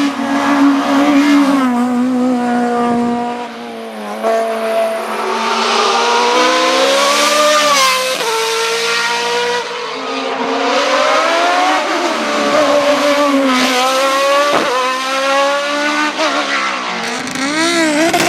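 Race car engine under hard acceleration on a hillclimb: revs climb repeatedly and drop sharply at each gear change, with a sharp crack about two-thirds of the way in and quick rev blips near the end on downshifts.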